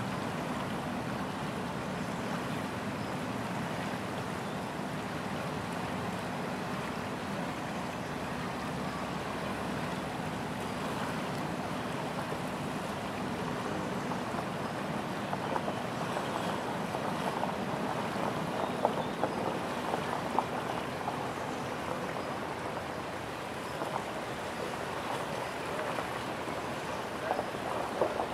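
Steady outdoor rush of river water and wind. A faint steady hum runs through the first half, and a few sharp ticks come in the second half.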